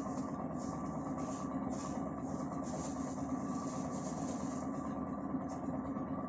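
A steady engine-like hum, with light crinkling of a thin plastic bag as a flexible-leg tripod is slid out of it.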